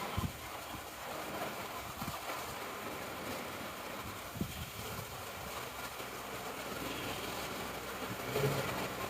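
A person snoring while asleep: low rumbling snores over a steady noisy background, with a louder, briefly pitched snore near the end.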